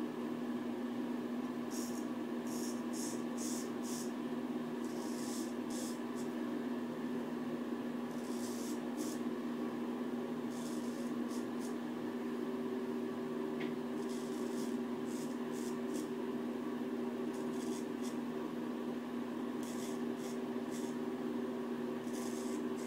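Dovo 5/8 straight razor scraping through lathered stubble in short strokes that come in small clusters every second or two, over a steady low hum.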